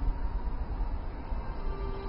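A low, uneven rumbling noise, with soft music coming in on a held note near the end.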